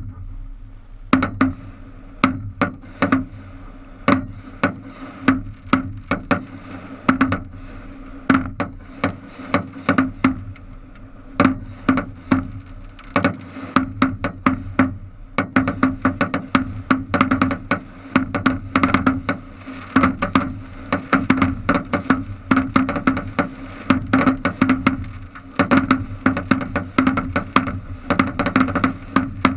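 Fireworks going off at close range on a boat's bow: a spark fountain hisses steadily while sharp cracks and pops go off irregularly, two or three a second.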